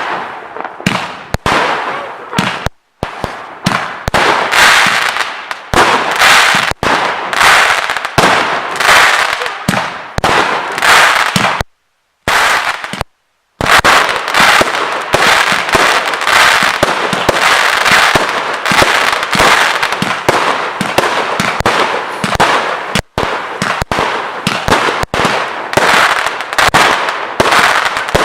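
Multi-calibre fireworks cake firing an 84-shot sequence: a rapid, almost continuous string of launches and aerial bursts. The sound cuts out completely for a moment about three seconds in and again for about two seconds near the middle.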